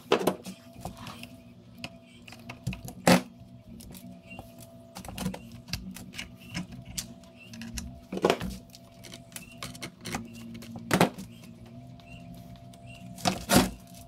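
Irregular sharp clicks and metal knocks of hand tools and parts being handled as a brush cutter's shaft is taken off its engine, the loudest about three seconds in and twice near the end, over a faint steady hum.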